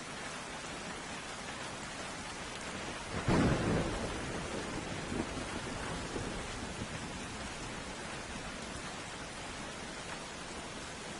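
Steady rain falling, with a sudden thunderclap about three seconds in that rumbles and fades away over the next few seconds.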